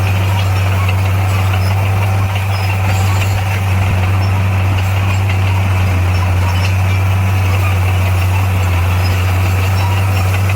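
Bulldozer's diesel engine running steadily, a deep even drone with no change in speed.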